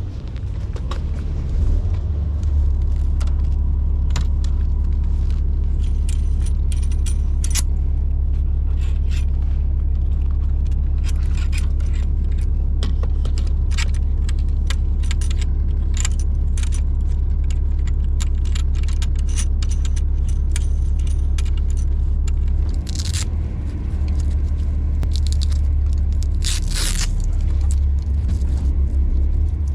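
Boat engines idling steadily as they warm up before getting underway, a constant low rumble. Scattered sharp clicks and metallic rattles sound over it, with a couple of longer scraping rattles near the end.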